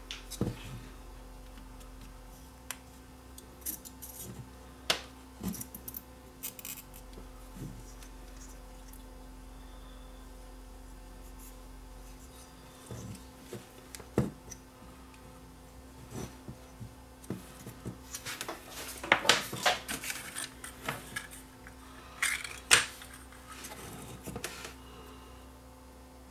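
Scattered clicks, taps and scrapes of a small circuit board and a soldering iron being handled while desoldering capacitors from a switch-mode power adapter board, coming thickest about two thirds of the way through. A low steady hum runs underneath.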